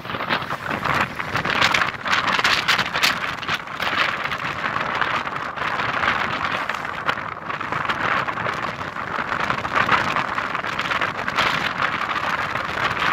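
Wind rushing over the microphone of a moving vehicle, together with road noise: a loud, steady noise that swells and dips in gusts.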